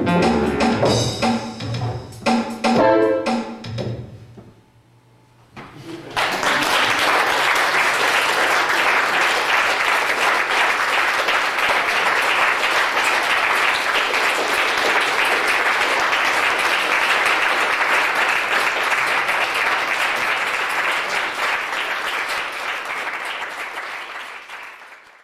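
A duo of guitar and synthesizer tones played with Lightning wands plays its last few notes, which die away about four seconds in. After a short pause the audience breaks into steady applause, which fades out near the end.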